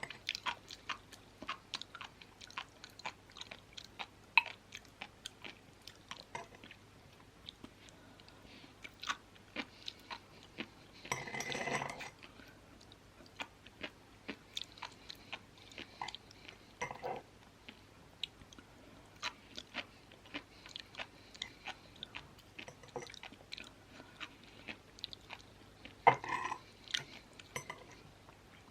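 Close-miked chewing of sea grapes (green seaweed), a stream of small crisp pops and clicks as the beads burst between the teeth. Two louder, fuller bursts of crunching come about 11 seconds in and again near the end.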